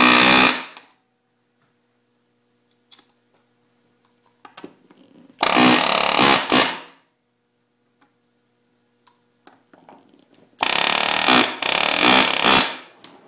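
Riveting tool pounding the rivets that fasten a cleat to a Hus-Ski 400 snowmobile track, with a metal bar underneath. It comes in three loud bursts a few seconds apart, each about one and a half to two seconds long.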